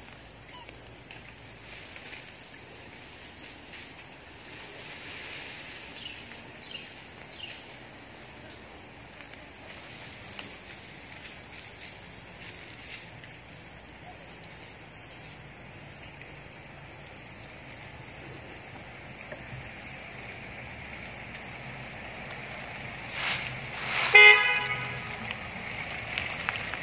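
Steady high-pitched drone of insects (cicadas or crickets) in the forest. Near the end there is a brief, loud, steady-pitched toot.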